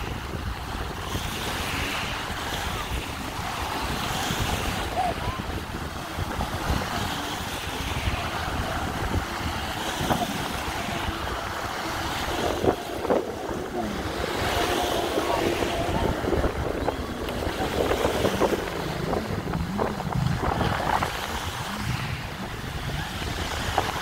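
Sea waves washing and wind buffeting the microphone, with a jet ski's engine running as it circles close by.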